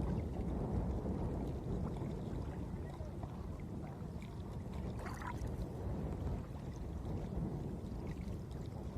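Reservoir water lapping and sloshing around a wading angler, a steady low rumble.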